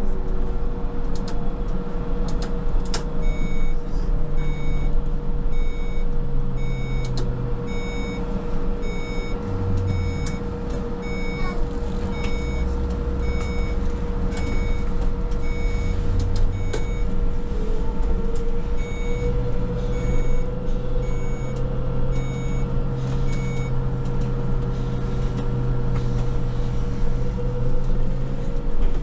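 Škoda 27Tr trolleybus running: the hum of its electric drive shifts in pitch, with a steady mid-pitched tone and a whine that rises in pitch twice. Two runs of evenly spaced high electronic beeps, a little over one a second, sound from the cab.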